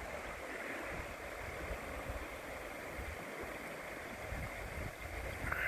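Creek water running steadily over rapids: an even rushing.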